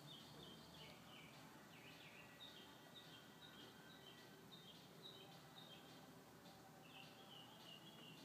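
Faint outdoor background noise with birds chirping: many short, high chirps in quick succession.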